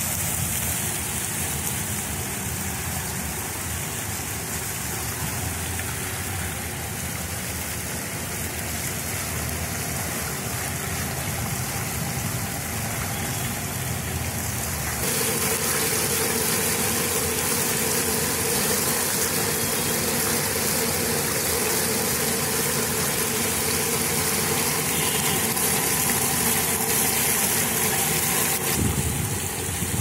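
Geyser-jet water fountain running: a steady hiss of water shooting up and splashing down. About halfway through it grows louder, and a steady hum joins in.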